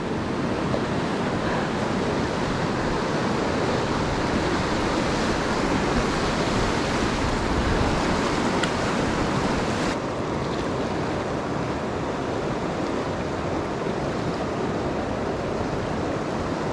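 Fast, high creek water rushing steadily. The rush turns duller about ten seconds in, as its upper hiss drops away.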